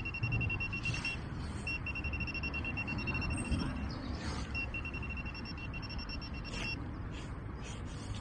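Metal detector's high-pitched target tone, a rapidly pulsing beep, sounding in three stretches of about two seconds each as the coil passes over a buried target, with a low rumble underneath.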